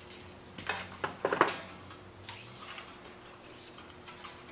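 Metal clicks and clatter from the wire-feed compartment of a Millermatic 251 MIG welder as the old wire is pulled out: a quick run of sharp clicks about a second in, then a few fainter ones.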